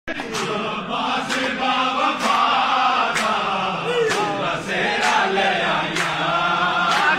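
A dense crowd of men chanting devotional praise together in rhythmic phrases, with a sharp beat about twice a second.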